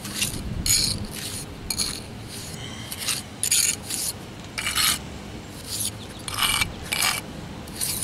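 Small metal trowel scraping and pressing a dry-pack mix of Portland cement and sand, barely damp like wet sand, into a crack in a concrete driveway. It makes a series of short scrapes, one or two a second, with a brief pause a little past the middle.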